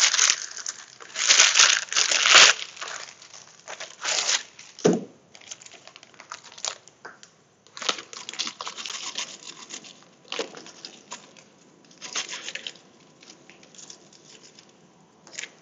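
Plastic bag of brown sugar crinkling and rustling as it is handled and tipped into a measuring cup. The rustling is loudest in the first couple of seconds, then comes in softer, scattered bursts.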